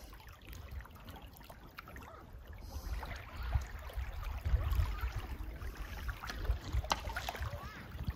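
Small waves lapping on a pebbly river shore, with an uneven low rumble underneath.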